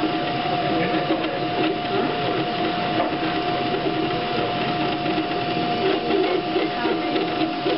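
FDM 3D printer printing in PLA: its stepper motors whirr and buzz in shifting tones as the print head moves back and forth, over a steady hum from the print-head cooling fan.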